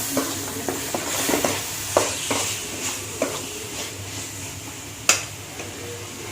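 A spoon stirring curry masala in a pan while it sizzles, with the spoon knocking and scraping against the pan every half second or so and one sharp clink about five seconds in. The masala has just been loosened with a little water before the chicken goes in.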